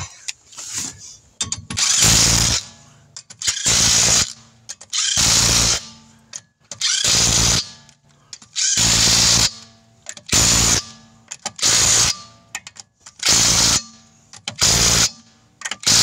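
Cordless impact wrench hammering on a car's wheel lug nuts in about ten short bursts, each half a second to a second long, roughly every one and a half seconds, starting about two seconds in.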